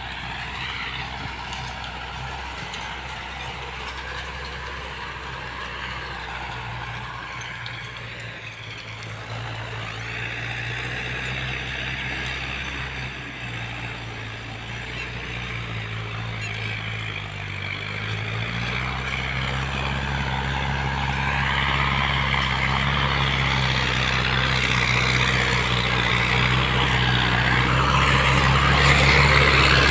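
Tractor engine running steadily, growing louder as it draws near. Its pitch dips briefly about halfway through, then recovers, as if under load while the implement cuts the papaya plants.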